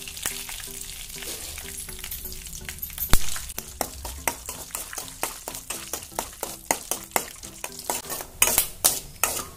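Raw peanuts, with mustard and cumin seeds, sizzling in a little hot oil in a steel kadai while a spoon stirs and scrapes them. Sharp crackles and pops come more often in the second half, with one loud click about three seconds in.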